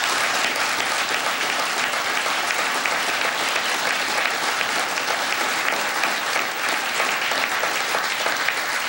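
Audience applauding: a large seated crowd clapping steadily.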